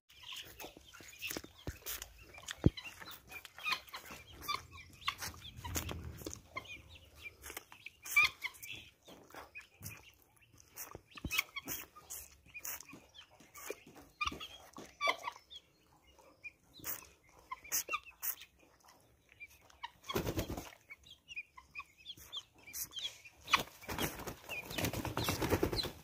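Young helmeted guinea fowl keets and a chick giving short, scattered chirps and clicks as they forage, with a brief flurry of wing flapping about 20 seconds in and a longer one near the end.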